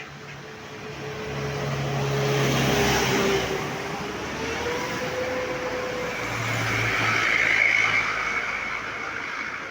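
Road traffic passing close by: two motor vehicles drive past one after the other, engine hum and tyre noise swelling and fading, the first about three seconds in and the second a few seconds later.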